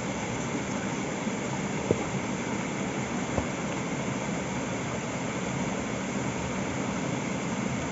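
Steady rush of flowing stream water, with two light knocks about two and three and a half seconds in as a coconut-shell bowl is set down on the dough on a wooden board.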